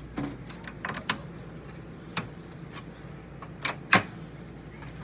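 Sharp clicks and clacks of a key working a newly fitted camper entry-door lock and its stiff deadbolt, about seven in a row, the loudest about four seconds in. The deadbolt turns hard and needs lubricating.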